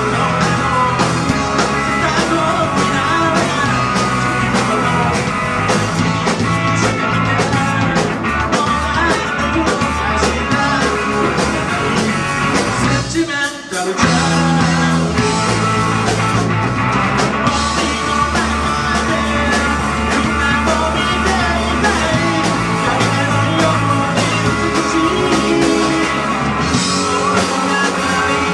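Live rock band playing: drum kit, electric guitar, bass and keyboard, with a lead vocal. About halfway through the band breaks off briefly, then comes back in together.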